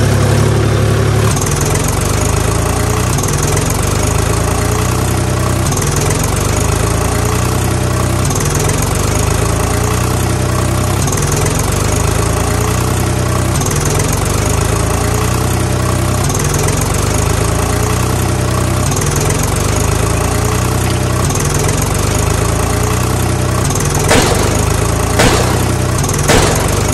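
Tractor engine sound effect running steadily, a looped recording whose pattern repeats about every two and a half seconds. Three sharp clicks come near the end.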